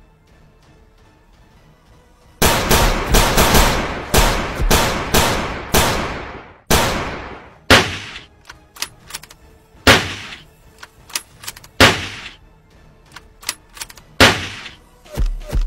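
Gunshot sound effects for a stick held as a pretend rifle. After about two quiet seconds comes a quick run of about seven shots, each with a trailing echo, then slower single shots mixed with smaller clicks.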